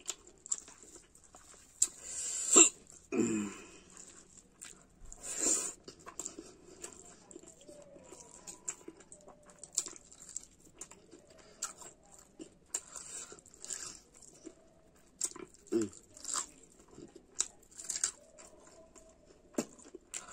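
Close-up eating sounds: chewing and lip smacking as rice, curry and omelette are eaten by hand from a steel plate, with fingers squishing through the food. Short sharp smacks keep coming, the loudest about two and a half seconds in and again at about five and a half.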